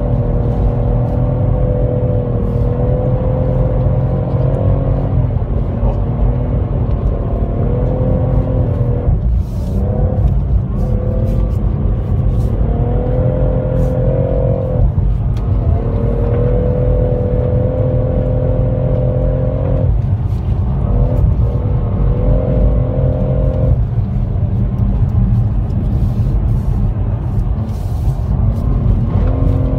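BMW M140i xDrive's 3.0-litre turbocharged straight-six running at high revs in third gear, heard from inside the cabin. The steady engine note dips briefly several times as the car is driven flat out on ice.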